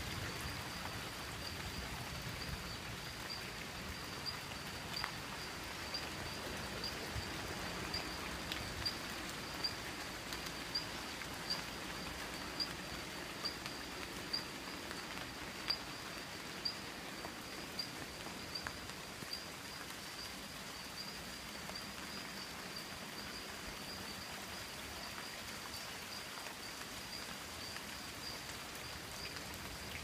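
Steady rain falling on rainforest foliage. Over it runs a high, thin pulsing call repeating evenly, about three pulses every two seconds, from an unseen forest animal.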